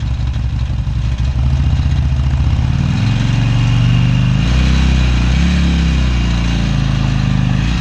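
Harley-Davidson Sportster V-twin engine running and being revved: it rises about two seconds in, then swings up and down a few times, as for a burnout.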